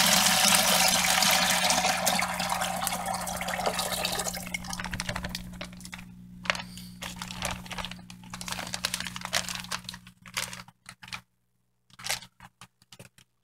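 Water poured from a plastic fish-shipping bag through an aquarium net into a plastic bucket: a steady splashing pour that trails off over about four seconds into dribbles and crinkling of the plastic bag, with a low steady hum underneath.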